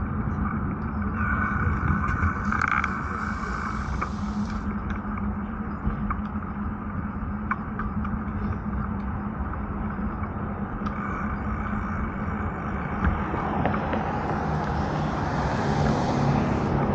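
Steady wind and rolling road noise from riding along on a bicycle, with a steady low hum underneath; the hiss swells twice.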